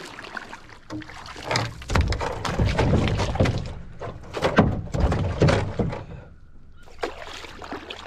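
Canoe paddle strokes in the water, with splashing and a few knocks and thunks of the paddle and hull. The sound is loudest through the middle few seconds and quieter near the end.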